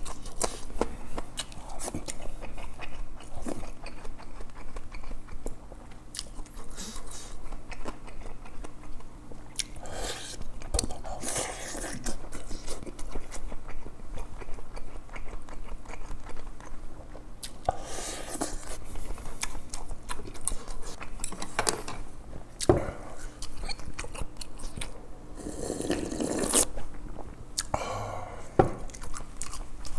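Close-miked eating sounds: chewing and biting on rice and grilled fish, with scattered sharp clicks of chopsticks against bowls and dishes.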